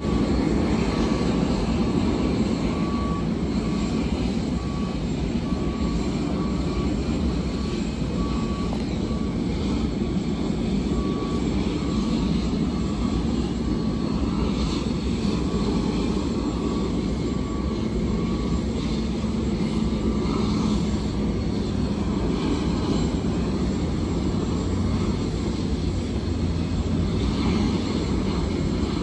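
Steady jet aircraft noise, a continuous low rumble and rush. A faint beep repeats evenly through most of the clip and stops after about twenty seconds.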